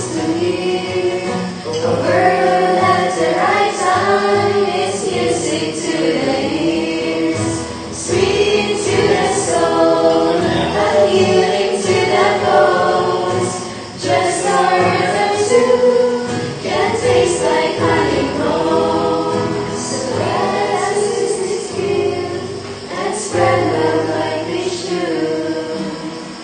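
Background music: a choir singing a hymn-like song, with women's voices prominent.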